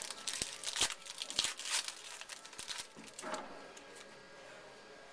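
A trading card pack wrapper being torn open and crinkled in the hands, a dense crackling that dies away after about three and a half seconds.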